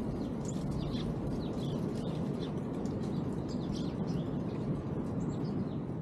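Small songbirds chirping: many short, high chirps in quick, irregular succession, over a steady low background rumble.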